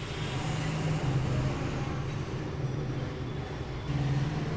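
Steady low motor rumble with a hum, like road traffic, growing louder about a second in and again near the end.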